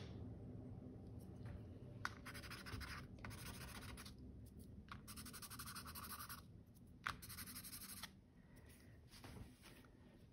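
Faint scratching of a pencil on paper in several short runs, with a light click about two seconds in and another about seven seconds in.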